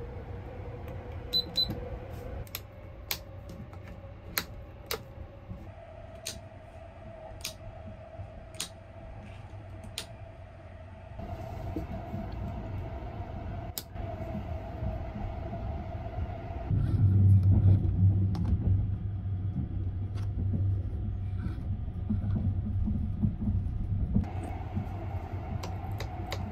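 Sunrise Izumo sleeper train running, its low rumble heard inside a single-berth compartment, with a faint hum that steps up in pitch a few times and a string of sharp clicks about once a second in the first ten seconds. The rumble grows louder about two-thirds of the way in.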